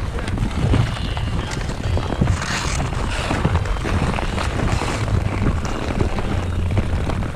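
Wind buffeting the microphone of a camera carried by a moving skater, over ice skate blades scraping on rough outdoor lake ice, with scattered clicks and taps of hockey sticks and puck. A longer, brighter scrape comes about two and a half seconds in.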